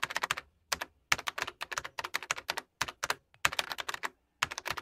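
Computer keyboard typing sound effect: rapid runs of key clicks with brief pauses between them, keeping pace with text typing out on screen.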